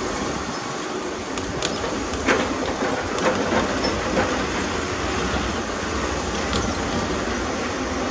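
Heavy earthmoving machinery running steadily, with a few sharp metallic clanks in the first half.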